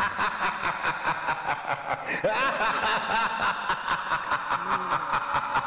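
Cackling laughter: a fast, even run of short pulses with rising and falling pitch.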